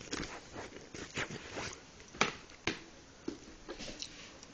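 Scattered light clicks and rustles of VHS tapes and their plastic cases being handled, at irregular intervals.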